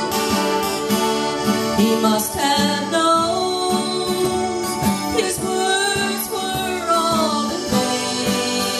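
Live acoustic folk band playing: a strummed twelve-string acoustic guitar and a cajon keep a steady beat, with a gliding melody line on top.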